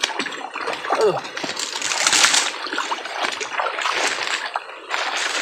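Shallow, muddy swamp water splashing and sloshing irregularly as a person wades through it and gropes for fish.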